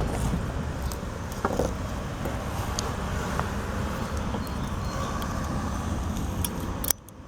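My Garden Easy ratchet pruning shears clicking a few times as they cut through a branch in stages, over a steady low rumble. The sound drops away abruptly near the end.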